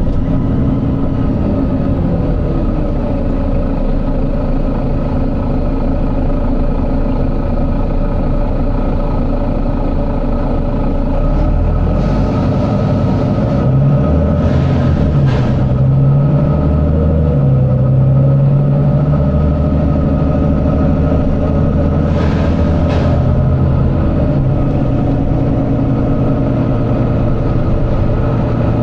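Volvo B9TL double-decker bus's 9-litre six-cylinder diesel engine running and thrashing, its pitch falling and rising with engine speed and pulling harder for about the middle third. Two short hisses of air are heard, about halfway through and again about two-thirds of the way through.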